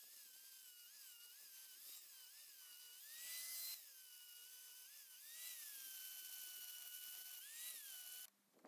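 Electric angle grinder running with an abrasive disc grinding rust off a steel bench vise, its whine wavering up and down in pitch as it is pressed into the metal, over a grinding hiss. The motor shuts off near the end.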